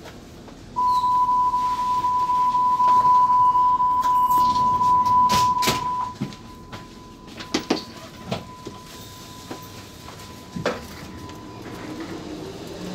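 A steady high electronic tone sounds in the driver's cab of a DT3-E U-Bahn train. It is loud for about five seconds, then carries on faintly. Several sharp clicks and knocks follow as the driver works the controls on the desk.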